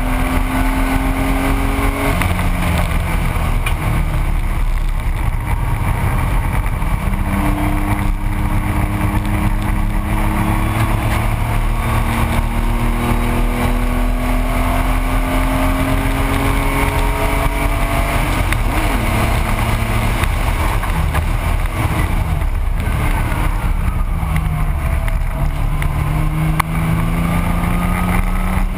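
1985 Porsche 911's air-cooled flat-six running hard at racing speed, its pitch climbing slowly through each gear and falling back at the shifts. Near the end the pitch drops and then climbs again.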